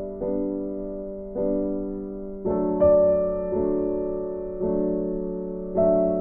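Slow, gentle background piano music: soft chords struck about once a second, each fading before the next.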